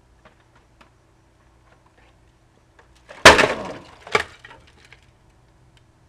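A loud crash of something hard breaking, with clattering pieces dying away, then a second, sharper crash about a second later.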